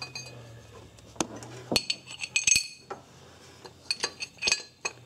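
Metal hand tools and loose engine parts clinking and knocking in an irregular string of sharp strikes, some ringing, as the camshaft sprocket bolts and sprockets come off a Ford 2.0L four-cylinder engine. A low steady hum underlies the first two seconds.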